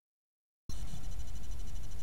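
Unattended trail camera's recording: a cut to dead silence for under a second, then steady low rumble and hiss with faint high steady tones above it.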